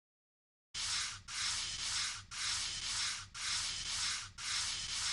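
Scrubbing strokes, about one a second, rubbing back and forth in an even rhythm; they start abruptly out of dead silence just under a second in.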